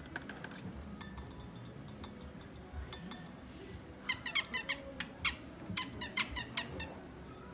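Squeaky dog toy squeaking as a Maltese puppy bites and chews it: a few scattered squeaks, then a quick run of squeaks from about four to seven seconds in.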